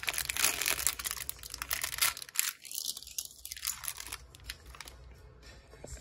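Thin clear plastic bag crinkling and tearing as it is pulled open by hand. The crackling is dense at first and dies down over the last second or so.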